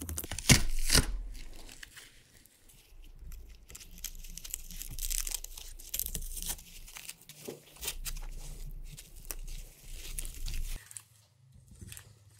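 Glued plastic sheet torn off the bottom of a lithium-ion battery module, with a sharp tearing sound about half a second in. Then comes scratching and crinkling as the leftover glue residue is picked and scraped off the cell tops with a small tool.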